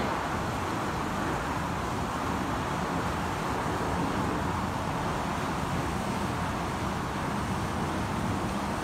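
Steady highway traffic: the tyres and engines of many cars blend into one continuous rushing noise that never rises or falls.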